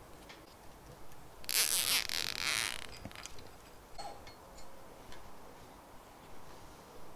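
A nylon cable tie zipped tight with a rasping burst lasting about a second and a half, followed by scattered light clicks and taps of parts being handled on the aluminium frame.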